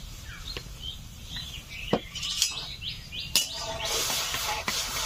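Small birds chirping repeatedly, with a few sharp clinks of a cooking pot and utensils, the loudest about two and three and a half seconds in, while masoor dal is washed in water.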